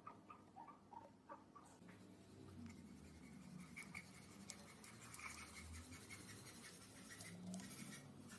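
Very faint scratching and rubbing with small clicks, close to silence.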